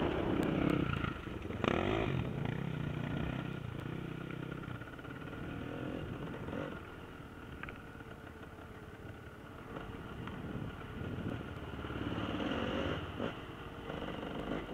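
Enduro motorcycle engines revving and changing pitch, loudest in the first couple of seconds, dropping away in the middle, then building again near the end.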